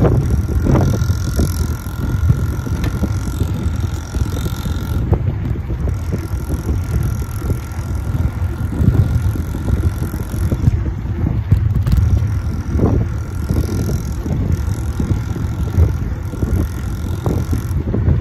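Heavy wind buffeting on the microphone from riding a bicycle, with a faint thin whine that comes and goes: a 50 cc mini trail bike's engine heard from a distance.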